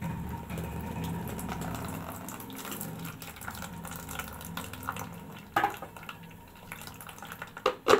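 Thick, freshly blended bitter gourd juice pouring from a blender jar through a plastic strainer and trickling into a plastic bowl. The stream is heaviest at first and thins out. There is a sharp knock about five and a half seconds in and a few clicks near the end.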